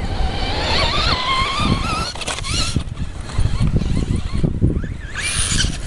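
Traxxas Slash 2WD radio-controlled truck's electric motor whining, its pitch rising and wavering with the throttle, loudest in the first two seconds and coming back in short bursts. Steady wind rumble on the microphone, and a short burst of hiss near the end.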